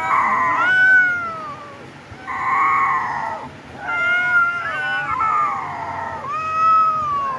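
Cats yowling as they wrestle: a series of long, drawn-out cries, each one to two seconds, several sliding down in pitch at the end, with short gaps between them.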